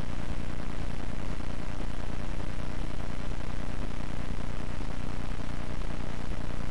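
Steady hiss with a low electrical hum underneath.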